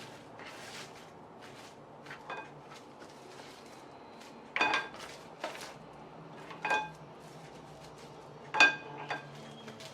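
Kitchen utensil clinking against a dish: four sharp strikes about two seconds apart, each ringing briefly, with a few lighter knocks between them; the last strike is the loudest.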